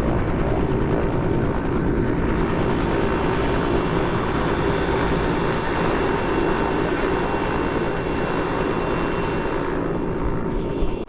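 Helicopter running with a steady rotor and turbine noise; the rhythmic beat of the rotor blades is plain for the first couple of seconds, then blends into the steady noise.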